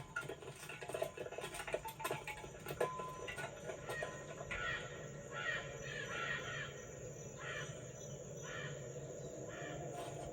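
A series of about five harsh, caw-like calls, starting about halfway through, over faint clicking and a low hum.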